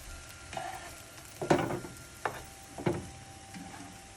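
Potato scones frying in bacon fat in a hot pan, a steady sizzle, with two louder knocks about a second and a half in and near three seconds, and a sharp click between them.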